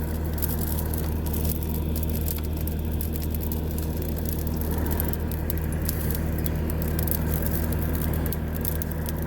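Diesel engine of compact earthmoving equipment idling steadily, with the light crackle of a brush pile burning.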